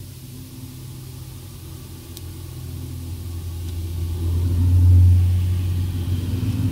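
Low rumble of a passing motor vehicle, heard from inside a car, swelling to a loud peak about five seconds in and then easing off. A faint sharp click about two seconds in.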